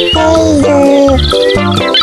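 Upbeat children's background music with a steady bass beat and a bright melody line.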